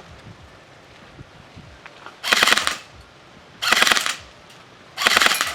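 Golden Eagle M4A1 airsoft rifle firing on full auto: three short bursts of about half a second each, starting a little after two seconds in and spaced about a second and a half apart.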